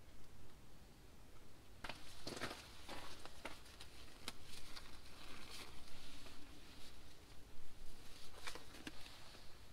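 Blue disposable nitrile gloves being picked up and pulled onto the hands: irregular crackly rubbery rustling with a few sharp small clicks and snaps, starting about two seconds in.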